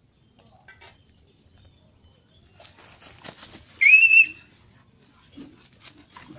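A puppy's single short, high-pitched yelp, about half a second long, just before the middle, amid bouts of rustling and scuffling in dry leaves and weeds as two dogs play-fight.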